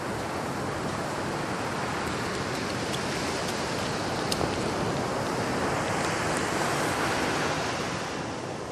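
Black Sea surf: waves washing onto the beach, the rush building through the middle and easing off near the end.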